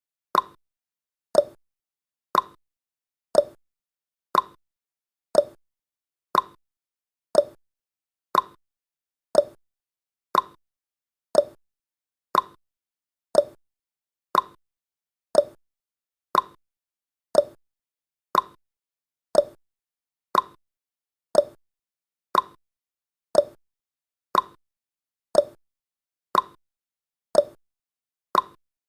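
Countdown timer's ticking sound effect: a short click once a second, alternating between a higher and a lower tick, like a clock's tick-tock.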